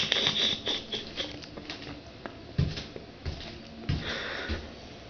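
Close-up mouth sounds of a person chewing a spider: a run of small clicks, with a few low thumps in the second half.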